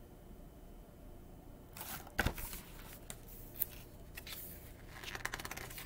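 Quiet room tone, then from about two seconds in, handling noises close to the microphone: irregular rustles, clicks and scrapes with one sharp knock, as the hardcover picture book is moved out of shot and a hand works near the microphone.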